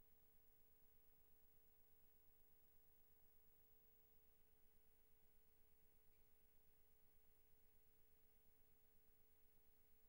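Near silence, with only a faint steady tone and hum.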